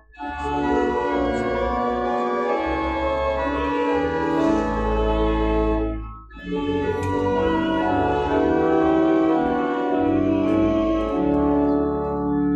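Church organ playing slow, sustained chords over a deep pedal bass, with a short break between phrases about six seconds in. It is the offertory music that accompanies the preparation of the gifts at Mass.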